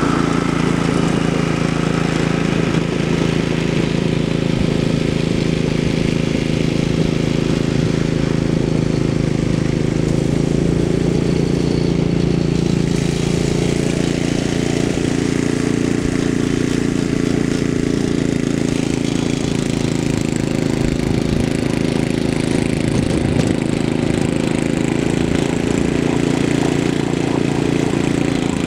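5-horsepower Tecumseh Snow King single-cylinder engine of a 1970s Ariens Sno-Thro snow blower running steadily at working speed while clearing snow.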